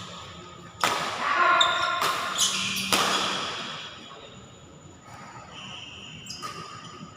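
Badminton rackets hitting a shuttlecock in a quick rally: three sharp strikes about a second apart, then a fainter hit later on.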